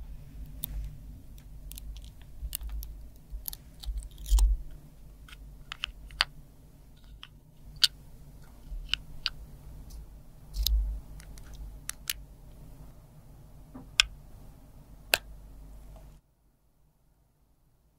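Metal tweezers clicking and tapping against a small plastic makeup compact as pressed makeup squares are set into its wells: irregular sharp clicks, a few much louder than the rest, over a low steady hum. The clicks stop about 16 seconds in.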